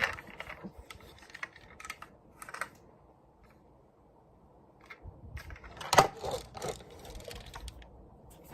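Scattered light clicks and taps, like small toy vehicles being handled and set down, with a sharper knock about six seconds in and a quiet stretch just before it.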